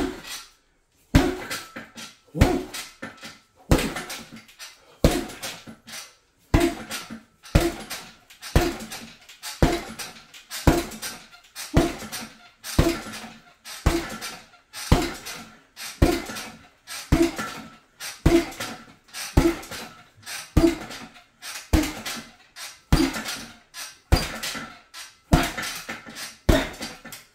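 Punches landing on a hanging heavy bag, orthodox body shots: a hard thud about every second with lighter hits between, keeping up a steady pace.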